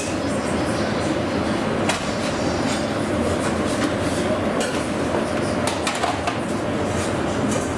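Commercial kitchen background: a steady hum and rush of extraction and equipment, with scattered clinks and knocks of utensils and pans.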